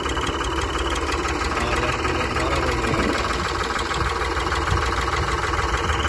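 Ford 3600 tractor's three-cylinder diesel engine idling steadily, with an even beat.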